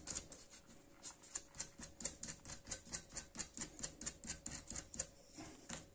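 Metal nut spun by hand down the threads of a steel toilet tank-to-bowl bolt, giving a quiet run of light, quick clicks, about five or six a second.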